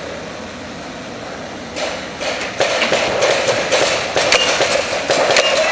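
Paintball markers firing reusable rubber reballs: a rapid, irregular string of sharp shots and impacts that starts about two seconds in and keeps going.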